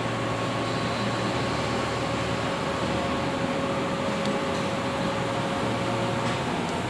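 Steady hum and fan-like rush of running machinery, with a faint steady tone that stops about six seconds in.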